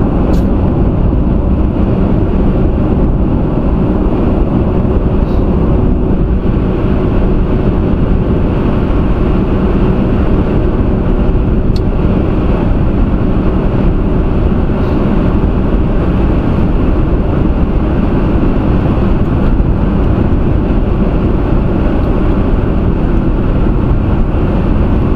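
A car cruising at highway speed, heard from inside the cabin: a steady rumble of road and tyre noise with engine hum.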